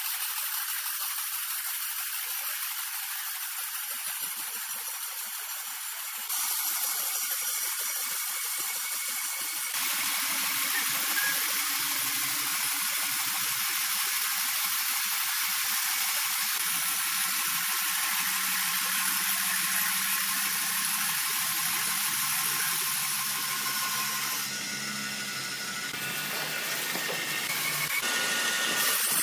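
Horizontal band sawmill blades cutting through large logs: a steady, hissing saw noise with a faint low motor hum under it in the middle. The noise changes abruptly a few times.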